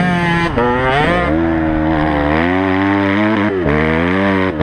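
Honda CRF250X's single-cylinder four-stroke engine under hard throttle while riding. The engine note climbs and falls, breaking briefly about half a second in and again around three and a half seconds in before rising again.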